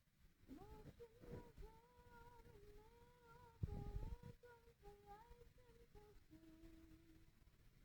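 A person humming faintly, holding wavering notes that shift in pitch and step lower near the end. A short low thump comes about three and a half seconds in.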